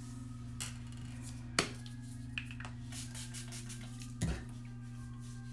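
A few light clicks and knocks from handling, the sharpest about a second and a half in and a duller thump about four seconds in, over a steady low electrical hum.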